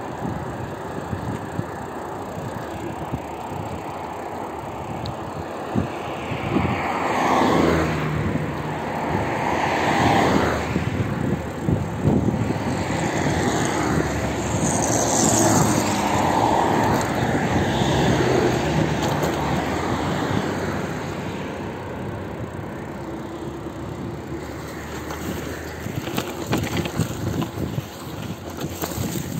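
Road noise from a bicycle ride through city streets: a steady rush of wheels, wind and traffic. It swells louder for a stretch through the middle, as if traffic is passing close by.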